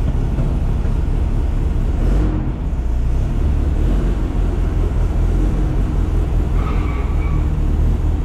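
Rail buggy's engine idling steadily with a low rumble, and a short high-pitched squeak about two-thirds of the way through.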